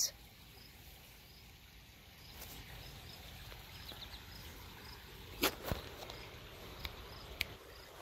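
Quiet background with faint, evenly spaced high insect chirps. A few sharp clicks and bumps from the phone being handled stand out about five and a half seconds in, with two smaller ones near the end. The cicada on the hand is not singing.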